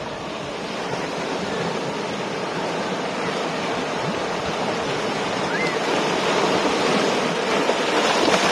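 Ocean surf breaking on the shore: a steady rush of waves that swells louder toward the end.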